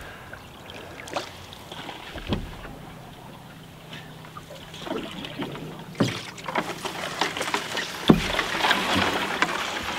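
Cedar strip canoe being paddled through water, with a few sharp knocks about a second in, a couple of seconds in, and twice in the second half. The water noise gets busier over the last four seconds.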